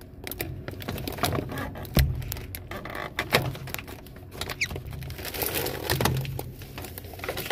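Clicks, knocks and light rattles of plastic parts being handled inside a snack vending machine, with one heavier thump about two seconds in, as a spiral motor assembly that will not seat is pushed and worked at.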